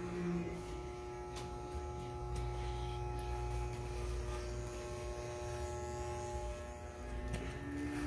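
Electric hair clippers running with a steady hum as they cut through a man's hair, the pitch dipping briefly near the end.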